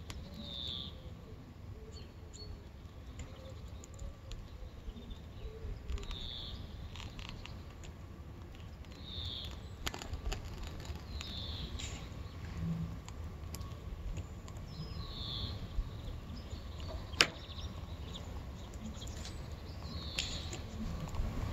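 Outdoor ambience after snowfall: a bird gives a short call every few seconds over a steady low rumble. A sharp click comes about 17 seconds in.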